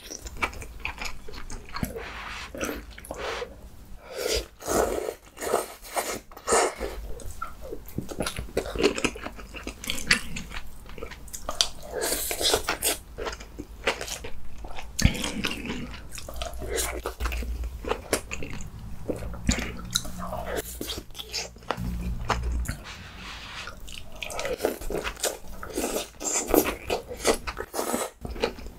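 A man chewing and biting big mouthfuls of kimchi stew and braised beef, with irregular clicks and occasional crunches.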